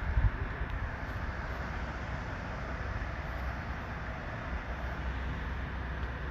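Steady outdoor background noise: a low rumble under an even hiss, with a brief louder low thump just after the start.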